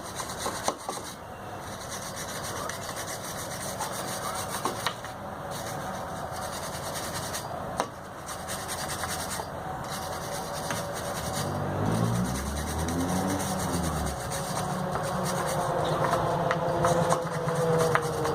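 Steel wire brush scrubbing rust off a brake rotor and the ring around the hub's mounting flange, a continuous scratchy rasping; the crust is built up from the liquid road de-icer. Partway through a low hum swells and bends in pitch, and near the end a tone slides downward.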